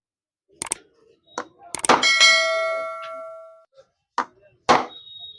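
Metal-on-metal hammer strikes while cutting the rivets of a motorcycle clutch housing: a series of sharp clangs, about six in all. One blow about two seconds in leaves the metal ringing for well over a second.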